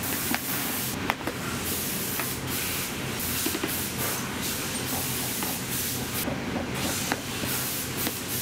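A steady low machine hum under a hissing, scraping noise that comes and goes in stretches of about a second, with a few sharp clicks.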